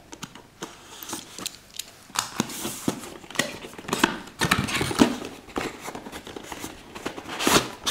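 Cardboard retail box handled and opened by hand: a run of irregular taps, scrapes and rustles as card slides against card.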